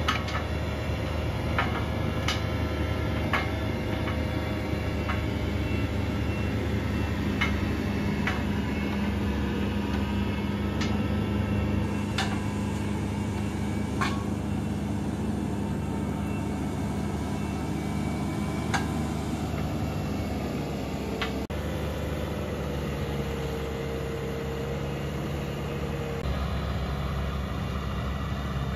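Bobcat T870 compact track loader's engine running steadily under load while a CONETEKS 2.13SF forestry mulcher's rotor grinds stumps and soil, with sharp knocks from wood and stones striking the rotor scattered through, most often in the first half. About two-thirds through, the engine note sags and wavers for a few seconds.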